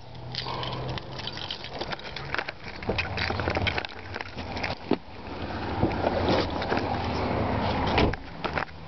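Camera handling noise with irregular clicks and knocks over a low rumble as the person climbs out of the car, then a sharp knock about eight seconds in as the car door is shut.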